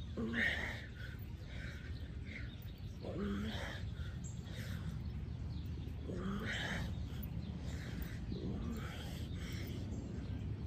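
A man grunting and breathing out hard with each push-up, about once every two to three seconds. A faint high chirping repeats behind it over a steady low rumble.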